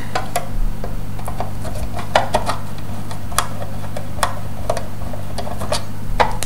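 Scattered small metal clicks and taps as the screws are undone and the metal cover of a radio control panel is taken off, over a steady low hum.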